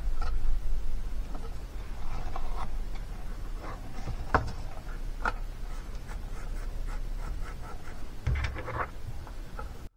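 Cardstock box being handled and pressed by hand: paper rubbing and rustling with a few sharp taps and clicks from the card, over a low steady rumble. The sound cuts off abruptly near the end.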